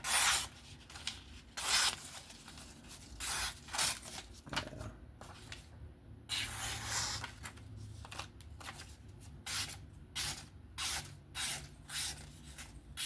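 Freshly sharpened 9Cr folding knife (Ferrum Forge Gent) slicing through paper in a run of quick, hissing cuts, with one longer cut about six seconds in, showing off a keen edge.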